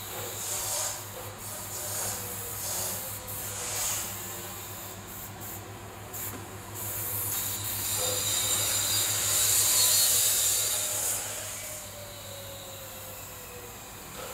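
Hiss of a compressed-air spray gun, in short bursts and then a longer, louder spell about halfway through, over a steady low hum.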